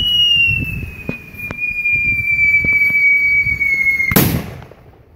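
Homemade whistle salute rocket burning on the ground without lifting off. It gives a steady shrill whistle that slowly falls in pitch over crackling pops. About four seconds in, the whistle stops with a sudden loud burst. The owner blames the poor performance on bad fuel: old, with too much catalyst and petroleum.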